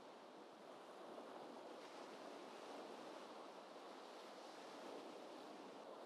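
Faint, gentle ocean waves washing steadily, a soft even surf sound with slight swells.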